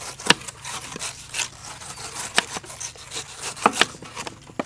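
Knives cutting into a peeled fresh pineapple, carving out the eyes: irregular crisp cuts and scrapes, with a few sharper knocks.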